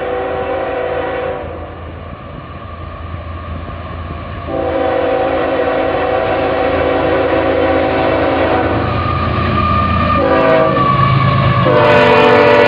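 CSX diesel locomotive's air horn sounding the grade-crossing signal as the freight train approaches: a long blast ending about a second in, a second long blast, a short blast, and a final long blast starting near the end. Beneath it, the rumble of the approaching locomotive grows louder.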